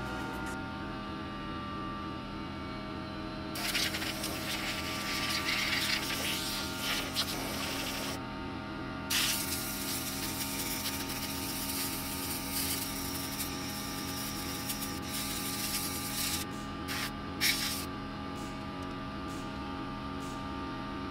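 Compressed air hissing from a blow gun fed by a Ridgid pancake air compressor, blowing dust off a PC case and its mesh dust filter. There are two long blasts of several seconds each, then a few short puffs near the end, over a steady hum.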